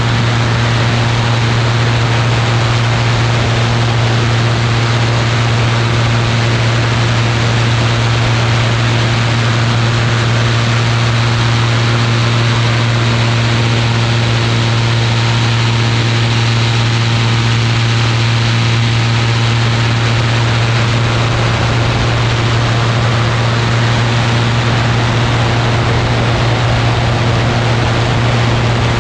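Ultralight aircraft engine and propeller running steadily, a constant low drone with a dense rush of wind noise over it.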